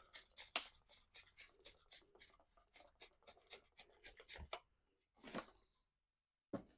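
Trigger spray bottle of soapy water squirting in quick repeated pumps, about four to five short hissing sprays a second, wetting the tire bead so it slips over the rim. The pumping stops, then comes one longer hiss and a short knock near the end.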